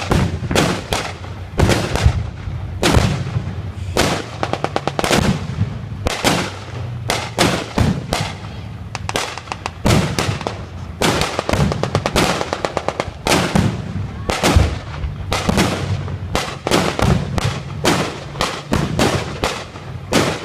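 Staged WWII battle reenactment gunfire: a dense, irregular barrage of blank-fired shots and heavier blasts, broken by several rapid machine-gun runs of shots.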